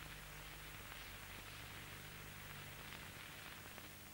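Faint steady hiss with a low electrical hum: the background noise of an old film soundtrack copied from VHS tape. It drops slightly near the end.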